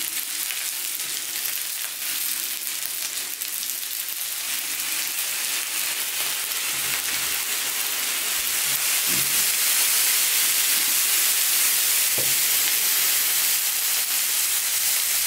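Fried rice sizzling on the hot plate of a Severin KG 2397 electric teppanyaki flat grill, with a spatula scraping and turning it. The sizzle grows louder about halfway through as soy sauce is poured onto the rice.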